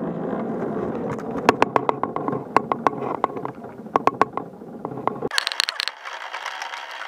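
Hand-pulled metal cable car being hauled along its cable: sharp clicks and clanks from the car and its pulleys over a steady low noise. About five seconds in the sound changes abruptly to a higher, faster rattle as the footage speeds up.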